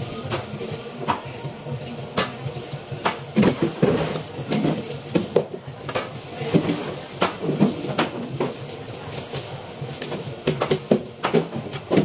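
Knife knocking and scraping on a cutting board as a red grouper is cut into pieces: irregular sharp knocks and clicks, several a second at times.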